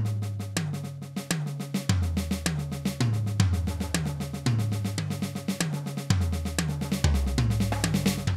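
Electronic drum kit played in a steady run of quick stick strokes: a paradiddle (right-left-right-right, left-right-left-left) spread around the pads, with bass drum and hi-hat under it.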